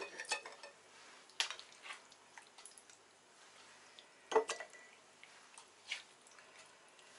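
A black ladle knocking against a pot and glass jars as pieces of peeled zucchini are spooned into the jars: a few scattered clinks and soft knocks, the loudest about four seconds in.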